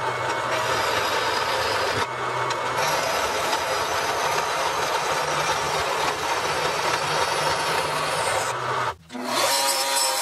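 Vertical bandsaw cutting a small steel fender-mount bracket: a steady rasping saw noise. About nine seconds in it stops abruptly, and a Bauer belt sander starts up with a steady whine as the piece is ground on the belt.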